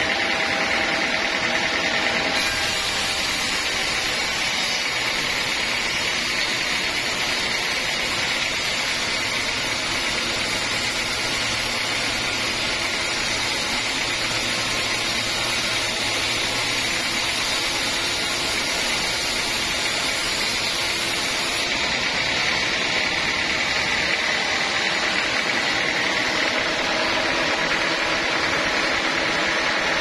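Sawmill band saw running and ripping lengthwise through a dense teak beam: a steady machine noise from the blade and its drive. A brighter hiss sets in a couple of seconds in and drops away about two-thirds of the way through.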